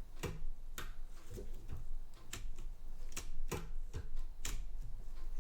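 Irregular sharp clicks and light knocks from a tipped-over Facit ESA-0 calculator being handled, its mechanism ticking as it is moved and turned.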